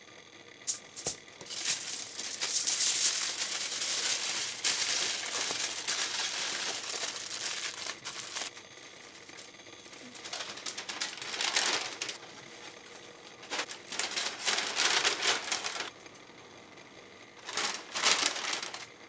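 Aluminium foil crinkling in long stretches as food is wrapped in it by hand, then a brown paper bag rustling briefly near the end as the package goes in.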